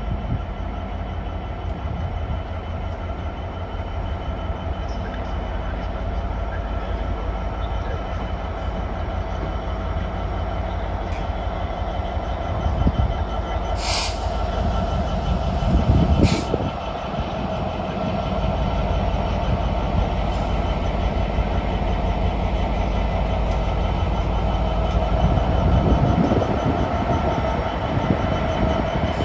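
GBRf Class 66 diesel locomotive, with its two-stroke V12 engine, running with a steady low rumble and a constant whine as it hauls flat wagons loaded with rails. The rumble grows louder towards the end. Two short sharp clicks come about halfway through.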